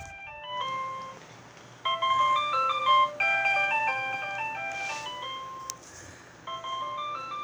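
Electronic school bell chime melody played back at 1.25 times speed through a speaker: a run of bright stepped notes, with short breaks about a second and a half in and again near six seconds. A sharp click sounds just before the second break.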